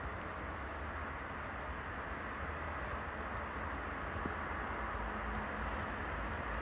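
Steady outdoor background noise: a low rumble under an even hiss, like distant traffic.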